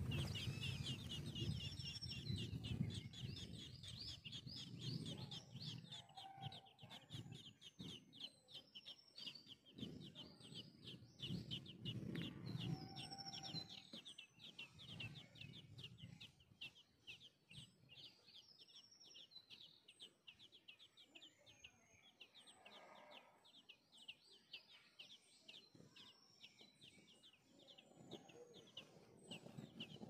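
Nestling birds begging: a fast, continuous run of short high cheeps, thinning out after about twenty seconds. Deeper calls sound underneath during the first half.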